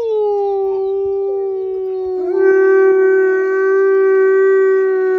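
Wolf howling: one long howl held on a nearly steady note, growing louder and fuller about two seconds in.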